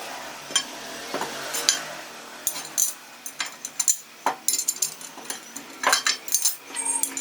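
Metal parts and tools being handled on a workbench: irregular clinks and knocks, a dozen or so, with short scrapes between them.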